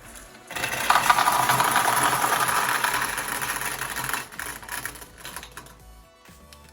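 Dozens of tiny marbles clattering off a LEGO printer's plastic board as it is cleared, a dense rattle of clicks that starts about half a second in, thins to scattered clicks after about four seconds and dies away.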